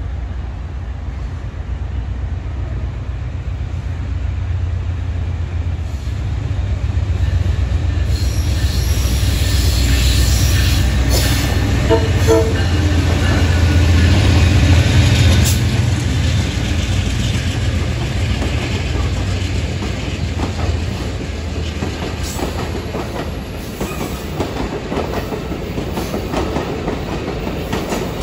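Amtrak passenger train led by a GE P42DC diesel locomotive approaching and passing close: a low diesel rumble that builds, with wheels clicking over the rail joints, loudest about ten to sixteen seconds in, then easing as the cars go by.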